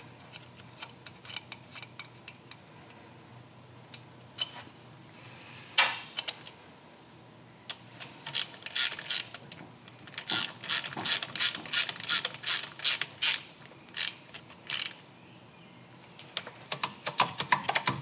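Hand ratchet clicking as the bolt and Nylock nut on a motorcycle's shifter arm are tightened. Scattered light clicks of the parts being handled come first; then, from about eight seconds in, a run of sharp, quick ratchet clicks, densest for a few seconds around the middle.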